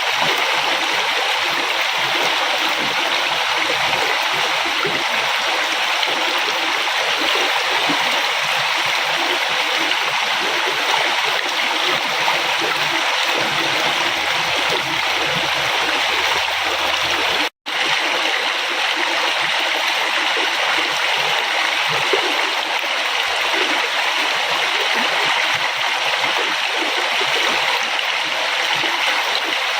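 River water flowing in a steady, even rush. The sound drops out for a split second a little over halfway through.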